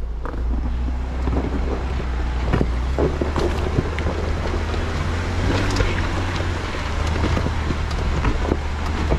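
Jeep engine running steadily at low revs while crawling over an off-road obstacle, with rocks and gravel crackling and popping under the tyres throughout, and some wind noise on the microphone.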